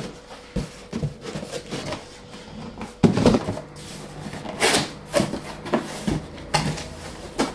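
Skateboard shipping box being handled and opened: irregular knocks, scrapes and rustles, with a sudden loud knock about three seconds in.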